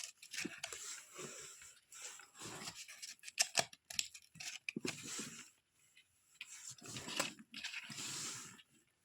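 Plastic packaging rustling and crinkling as small toy kitchen pieces are unwrapped and handled, with a few sharp clicks and taps between short pauses.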